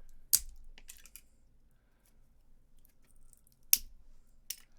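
Cutters snipping through the plastic of a laptop battery pack: a few sharp snaps, the loudest about a third of a second in and another near four seconds in, with lighter clicks between.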